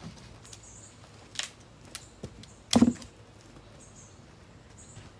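Split red oak firewood knocking against other pieces as it is handled and stacked: a few separate sharp wooden knocks, the heaviest about three seconds in.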